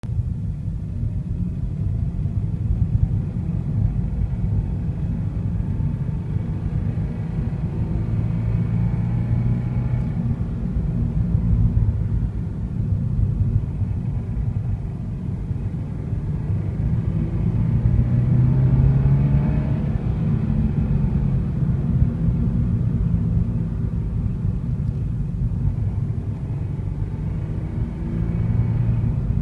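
An engine running with a steady low rumble that swells a few times, with faint steady tones above it.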